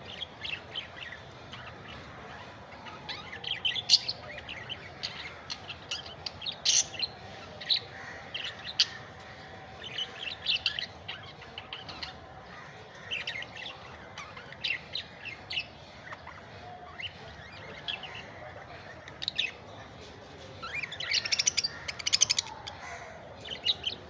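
Several budgerigars chirping: short, high chirps in irregular bursts, with a denser, louder flurry near the end.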